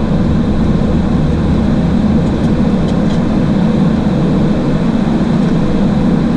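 Steady low rumble of a Boeing 737 flight deck, engine and air noise running evenly without rising or falling, with a faint steady high tone over it.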